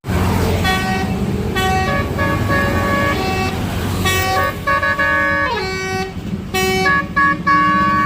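Basuri multi-tone bus air horn playing a 'telolet' melody: a string of short stepped horn notes, with one note sliding down in pitch about halfway through, over a low vehicle rumble.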